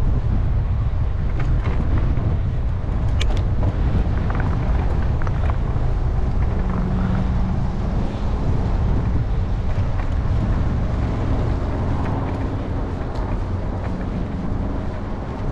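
Road noise of a moving bicycle ride: wind rumbling on the bike-mounted camera's microphone, with motor-vehicle traffic, a few sharp ticks, and a steady hum from about six seconds in.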